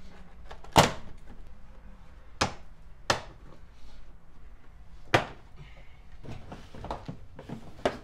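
Plastic door sill plate trim on a Chevy Tahoe being pried up, its retaining clips popping loose with sharp snaps: a loud one about a second in, three more over the next few seconds, and softer clicks near the end.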